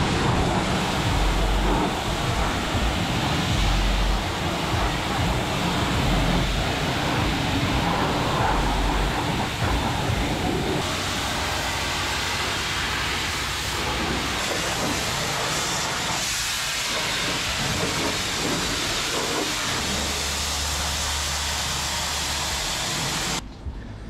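Self-serve car wash pressure-washer wand spraying caked mud off a pickup truck: a steady hiss of high-pressure water hitting the body and wheel well, which cuts off suddenly near the end.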